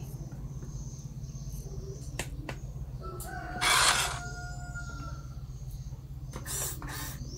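A rooster crowing in the background, one long call around the middle, over a steady low hum. Two short, loud rustling noises come about halfway through and again near the end.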